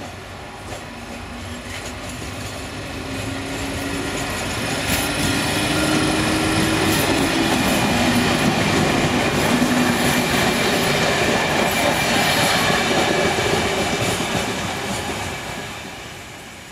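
Croatian Railways electric multiple-unit passenger train passing close by: its rumble and wheel noise build to a peak midway and fade as it goes. A low whine rises and falls in pitch, and the wheels click over rail joints.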